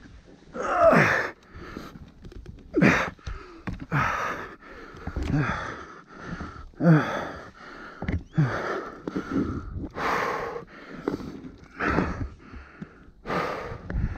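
A dirt-bike rider breathing hard and out of breath, with loud gasping breaths about every second and a half, some with a falling voiced groan.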